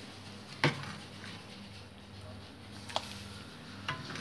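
A metal ladle knocking against the metal kadai as dal is ladled in: three sharp clinks, the loudest about half a second in and two lighter ones near the end, over a faint steady low hum.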